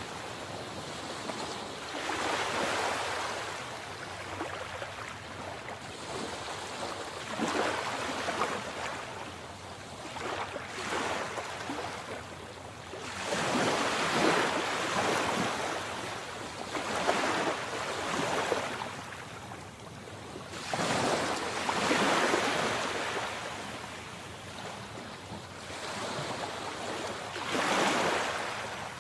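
Sea waves breaking and washing in, the surf swelling and falling away every two to four seconds over a steady hiss of water.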